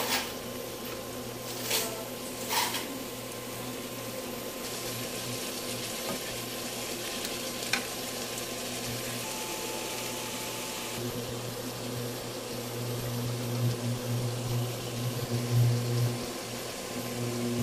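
Food sizzling in a pan on the stove, with a few sharp clicks near the start and once about eight seconds in. A steady low hum runs underneath and grows louder in the second half.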